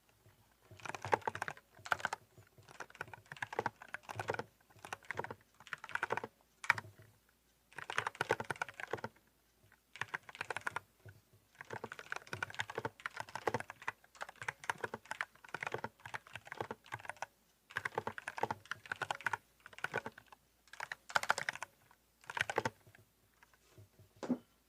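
Typing on an Eyooso Z686 mechanical keyboard with lubed RK brown tactile switches, holee-modded stabilisers, tempest tape mod and PE foam: quick runs of key strokes in bursts, broken by short pauses and a few single presses.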